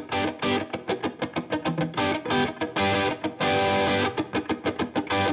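Background music led by a guitar with effects, playing quick repeated notes with a steady beat.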